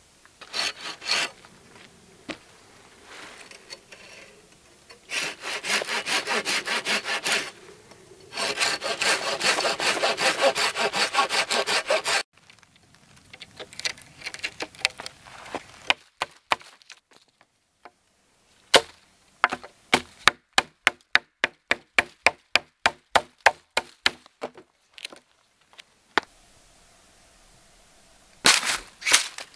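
A hand saw cutting into a pine log in quick rasping strokes, then a run of sharp wooden knocks about two a second as a notch is chipped out of the log with a knife, with more sawing strokes near the end.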